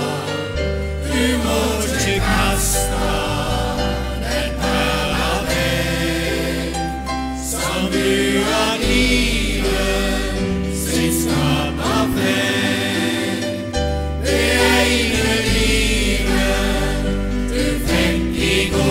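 Mixed choir of men's and women's voices singing a Norwegian hymn, with piano accompaniment holding steady low notes under the voices.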